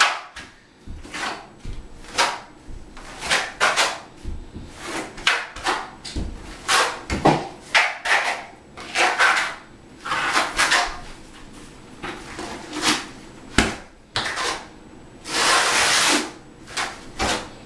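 Steel trowel scraping thinset mortar across a hardened self-leveling underlayment floor as the mortar is keyed into it: irregular scraping strokes about once a second, with a longer, louder stroke near the end.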